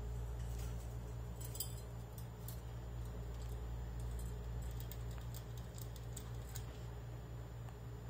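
Faint, scattered light clicks and ticks over a steady low hum, thickest in the first six seconds or so.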